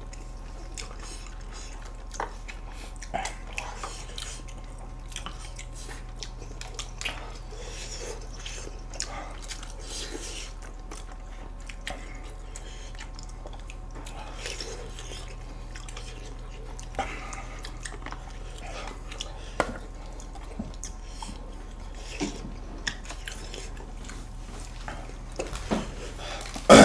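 People chewing and eating, with soft mouth sounds and scattered light clicks of chopsticks and spoons over a steady low hum. A short, loud sound comes near the end.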